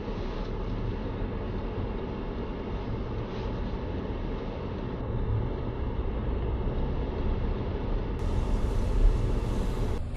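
Steady engine and tyre road noise heard inside a moving car's cabin, with a brief louder knock about nine seconds in.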